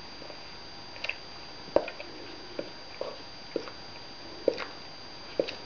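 A black pet licking and nibbling at its own fur while half asleep: short wet smacks of tongue and mouth, about one a second, some in quick pairs.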